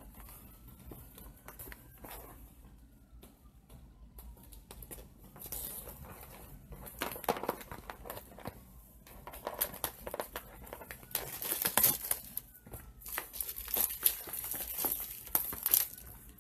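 Packaging of a diamond painting kit being opened by hand: wrapping crinkling and tearing with irregular rustles and crackles, faint at first and getting busier about five seconds in.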